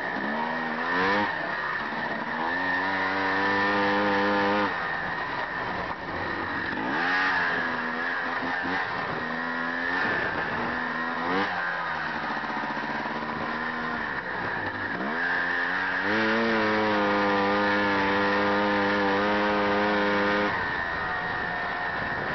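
Honda FL350 Odyssey's single-cylinder four-stroke engine revving hard under way, its pitch climbing in quick rises and dropping back off, held high at full throttle for about two seconds early on and again for about four seconds from two-thirds in.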